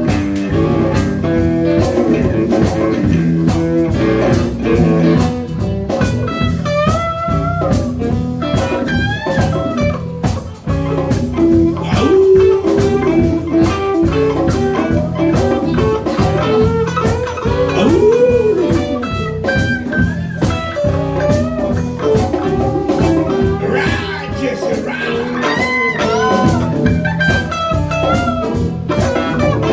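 Live blues band playing: a guitar lead with bent, wavering notes over a steady bass and drum groove.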